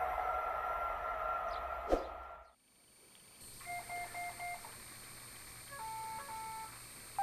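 A train sound fades out about two and a half seconds in, with a sharp click just before. Then two short runs of electronic beeps over a faint steady hum: four quick beeps, then a few more about two seconds later.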